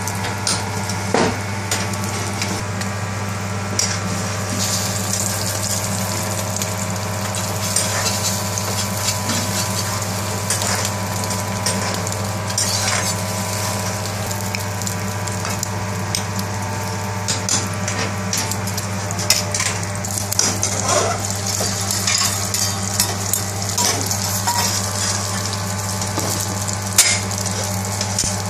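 Egg sizzling in oil on a flat iron griddle (tawa), with a metal slotted spatula scraping and tapping the pan now and then as a paratha is pressed onto the egg. A steady low hum runs underneath.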